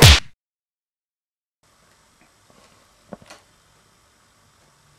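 A single loud, short thump right at the start that cuts off into dead silence. Then faint room tone with a couple of soft taps about three seconds in.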